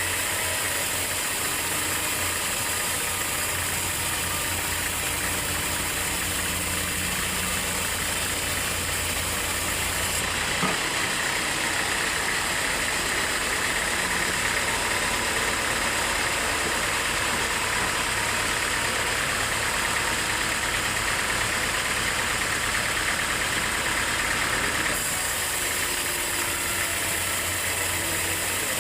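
Sawmill machinery running with a steady, engine-like drone. About ten seconds in, its tone shifts to a brighter hiss for some fifteen seconds, then returns to the earlier sound.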